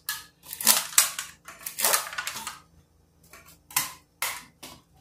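Thin disposable plastic cups clacking and crinkling as they are pulled apart from a stack and set down on a table: irregular clicks and short rustles, loudest in the first two seconds, with softer taps after about three seconds.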